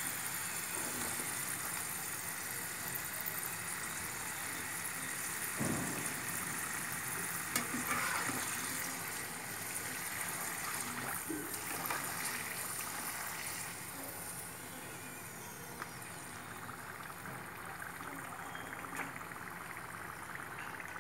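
Purple yam fries deep-frying in hot oil in a wok: a steady sizzle of bubbling oil, with a few light knocks of a metal slotted spatula against the pan. The sizzle eases a little about two-thirds through.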